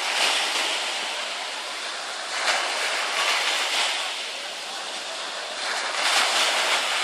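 Small waves breaking and washing up a pebbly shore, surging three times.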